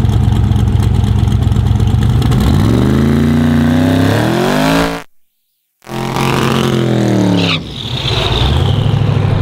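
Twin-turbo 427 ci LS V8 of a drag Camaro revving hard in a burnout, its slicks spinning. The engine note climbs steeply, cuts out for under a second midway, falls away, then climbs again near the end.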